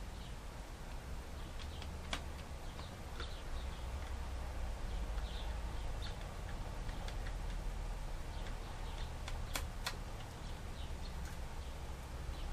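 Scattered light clicks and ticks of a Phillips screwdriver driving small screws into a laptop's plastic screen bezel, over a low steady hum.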